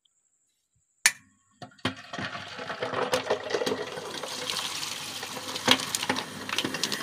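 Electric butter churn (madhani) starting up: a click about a second in, then from about two seconds its motor runs steadily with liquid sloshing as it churns yogurt and ice water for butter and lassi.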